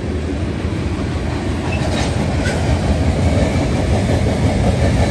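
BNSF freight train of open-top hopper cars rolling past: a steady noise of steel wheels on rail, slowly growing louder.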